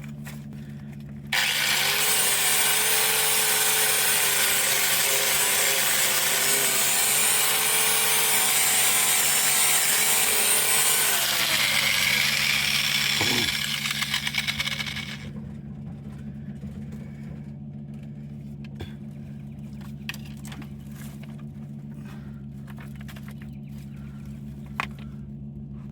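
Angle grinder switched on about a second in and run against the truck's metal for about ten seconds, its motor pitch sagging as it is pressed into the work, then released and spinning down. A steady low hum and a few light knocks follow once it stops.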